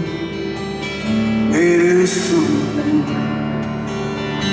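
Steel-string acoustic guitar strummed gently and steadily in a slow solo song. About one and a half seconds in, a single held note that wavers slightly rises over the guitar for a second or two.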